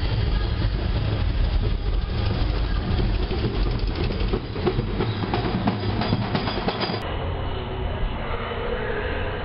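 A large vehicle rumbling past close by, with a rattling clatter over the rumble. About seven seconds in, the sound cuts abruptly to a different, steadier background.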